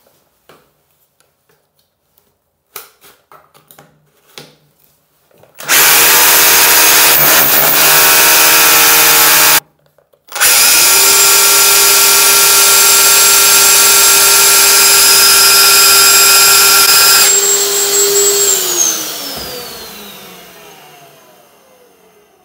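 Cordless hammer drill in hammer mode boring into a tiled wall with concrete behind it. After a few light handling clicks it runs loud for about four seconds, stops briefly, runs again for about seven seconds, then the motor winds down with a falling whine.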